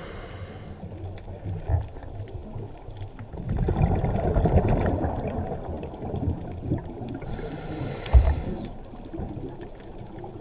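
Scuba diver's regulator breathing heard underwater: a hissing inhale at the start, a long low bubbling exhale from about three to six seconds in, and another hissing inhale near the end, with a sharp knock during it. Faint clicks crackle throughout.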